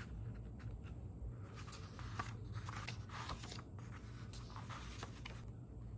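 A book being handled and its pages turned: soft, irregular paper rustles and small crackles, over a low steady hum.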